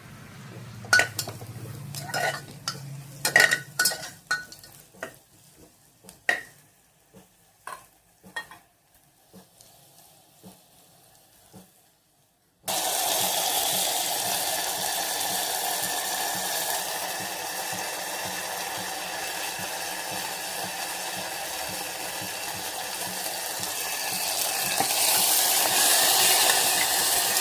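Small metal utensils knocking and clinking in sharp, irregular taps for about twelve seconds. Then, starting suddenly, steady sizzling of chicken curry frying in oil while it is stirred, growing louder near the end.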